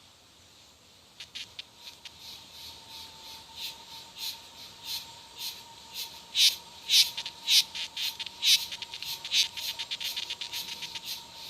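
A cicada singing in a series of buzzing pulses. They start faint about a second in, quicken and grow louder, and reach about two strong pulses a second in the second half.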